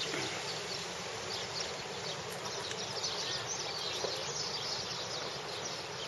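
Quiet outdoor background: a steady hiss with faint, scattered high chirps.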